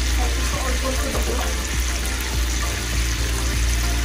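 Shrimp frying in a pan with a steady sizzle.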